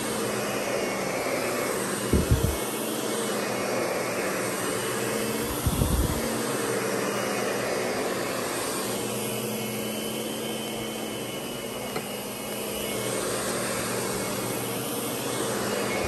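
Lindhaus Diamante vacuum cleaner running on carpet, a steady motor hum, with two short low thumps about two and six seconds in.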